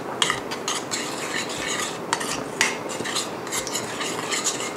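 Metal spoon stirring a thin gochujang sauce in a stainless steel frying pan, clinking and scraping against the pan at irregular moments.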